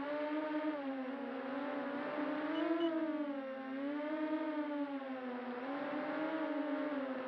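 FPV quadcopter's brushless motors and propellers whining in flight, the pitch rising and falling every second or two as the throttle changes.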